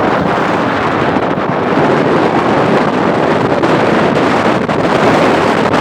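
Strong beach wind buffeting the microphone: a loud, steady rumbling rush with no breaks.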